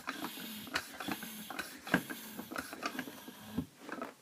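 Irregular light clicks and knocks from a floor pump and bicycle wheel being handled, with a faint hiss in the first second.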